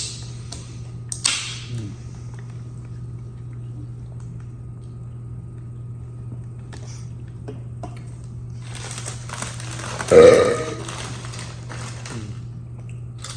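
A man burps loudly once, about ten seconds in, with a brief sharp noise about a second in and a steady low hum underneath.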